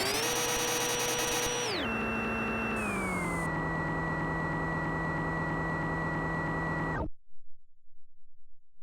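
Simulated CNC lathe machining sound from the SSCNC simulator: a steady synthetic machine tone whose pitch steps down twice, near two seconds in and again about a second later. It then holds until it cuts off abruptly about seven seconds in.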